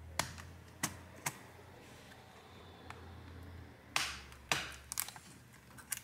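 Plastic clicks and snaps as the keyboard of an Acer Aspire One netbook is pried loose with a thin tool pushing in its retaining tabs: three sharp clicks in the first second and a half, then two louder scraping snaps about four seconds in and a few lighter clicks near the end.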